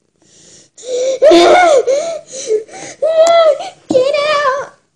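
A young girl laughing and squealing in a string of loud, high-pitched bursts.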